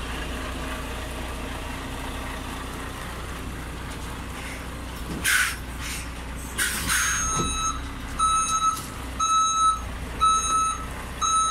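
A truck's diesel engine runs steadily while the truck reverses. Two short hisses come about halfway through, and then its reversing alarm starts beeping, about once a second.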